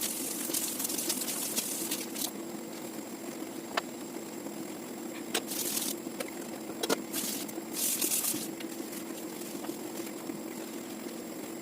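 A steady low mechanical hum, with several short hissing bursts and a few sharp clicks or knocks on top.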